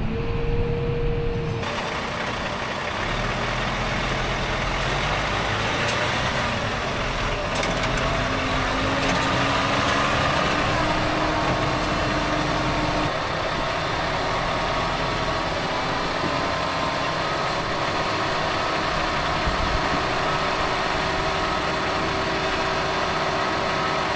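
Loaded farm truck's engine running hard under load on slick, wet ground, its pitch slowly rising and falling, typical of a truck struggling for traction with some wheels spinning.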